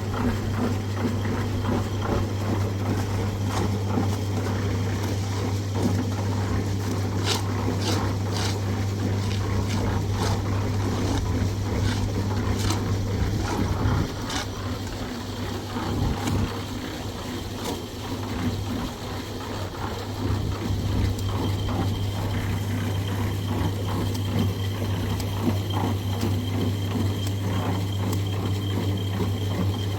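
A small engine runs steadily with a constant low hum, and a series of sharp clicks and knocks comes through it, mostly in the first half.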